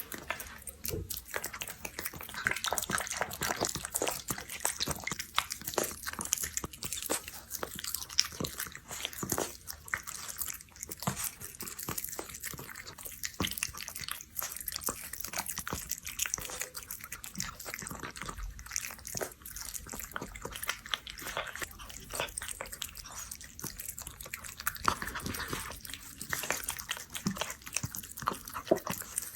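A cat eating wet cat food, chewing and licking with a dense run of quick wet clicks and smacks.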